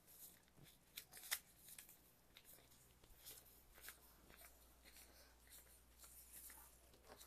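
Faint handling noise: scattered short clicks and rustles of small objects being moved, over a low steady hum.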